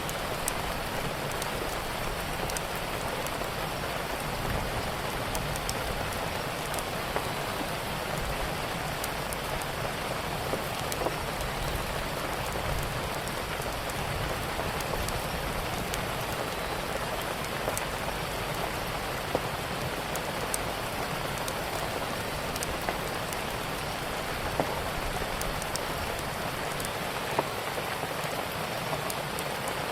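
Steady rain falling, with scattered sharp crackles of a wood fire every few seconds.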